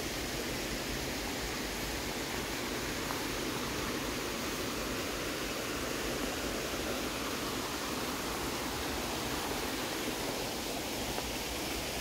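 A mountain creek flowing, a steady even rush of water with no breaks.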